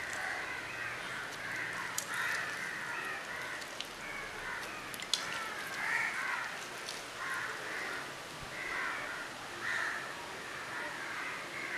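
Crows cawing repeatedly, harsh calls coming about once a second, with a couple of light clicks in between.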